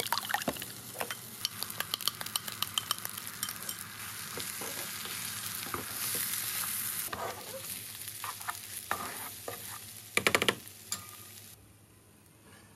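Eggs being beaten with a utensil in a glass bowl, a quick run of clicks against the glass. Then the beaten egg sizzles in a hot frying pan as it is stir-fried into rice and garlic scapes, with the spatula scraping the pan and one loud scrape near the end. The sizzling cuts off suddenly shortly before the end.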